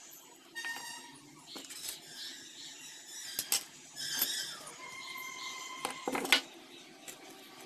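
Small parts being handled and set down on a wooden tabletop: several light knocks and clicks, the loudest about six seconds in as a wooden block is put down. Faint steady tones sound in the background.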